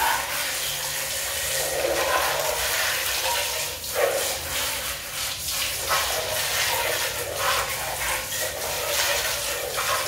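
A jet of water spraying onto and splashing off a hard plastic vacuum-cleaner dust bin as it is rinsed and turned under the stream.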